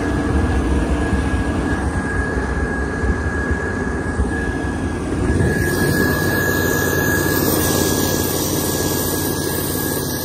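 The Stub truck's turbo-diesel engine running as the truck drives along a snowy trail: a steady engine rumble with a steady high whine through it, picked up by a camera outside the cab. It gets a little louder about halfway through.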